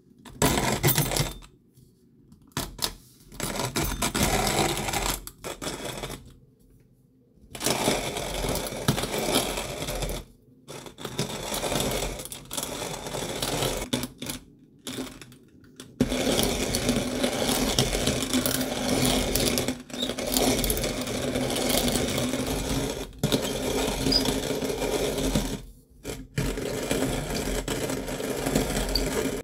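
Kalita hand-cranked coffee mill grinding whole roasted coffee beans, the crank turned in short spells with brief pauses at first, then almost without a break from about halfway.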